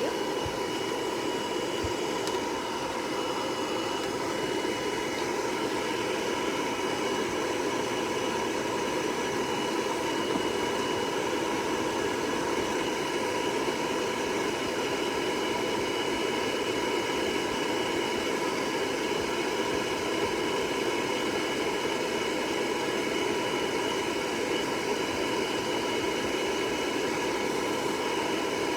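Hair dryer running steadily, a constant rush of air with a thin whine over it.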